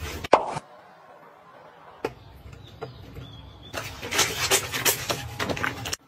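Wet, sudsy fabric squeezed and rubbed by hand in a basin of foamy water: squelching and crackling of the foam in two spells, with a quieter pause between them.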